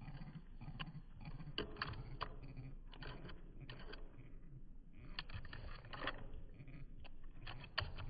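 Irregular clicks and scrapes of a blue jay's beak and claws picking through seed in a feeder tray, over a steady low rumble.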